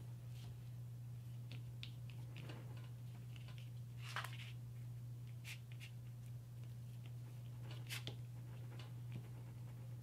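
Faint handling sounds of a paintbrush working over torn paper and paper being pressed down: scattered soft rustles and ticks, the two most noticeable about four and eight seconds in, over a steady low hum.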